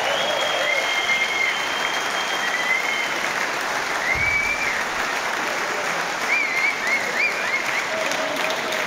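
Concert audience applauding steadily after a song, with whistles rising and falling over the clapping.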